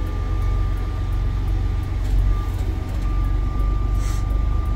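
Semi-truck's diesel engine running steadily at low speed in slow traffic, a deep, even rumble heard inside the cab, with a faint steady high-pitched tone above it.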